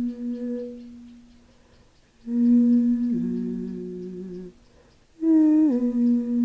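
A woman's voice humming long, held notes into the back of a drum. There are three notes with short breath pauses between them: the second steps down to a lower pitch partway through, and the third starts higher and slides down before it settles.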